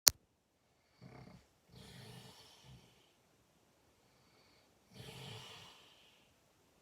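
A person snoring, a rough snore likened to a tiger's growl, in two snoring breaths, the first about a second in and the second about five seconds in. A brief sharp click at the very start.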